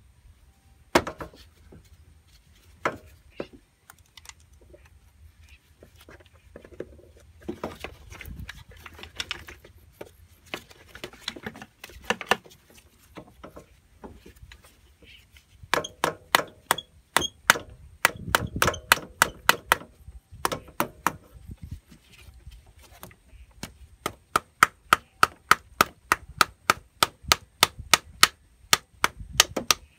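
Knocks and rustling as a Honda Dio scooter's carburetor is worked loose by hand. Then, from about halfway, an unseen creature calls in a long series of sharp clicks, settling to about three a second near the end.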